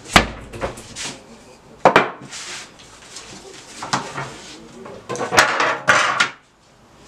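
Metal baking tray knocking and clattering on a wooden table as thin pizza dough is pressed on it and lifted off: three sharp knocks, near the start, about two seconds in and past the five-second mark, with a stretch of scraping and rustling of the dough near the end.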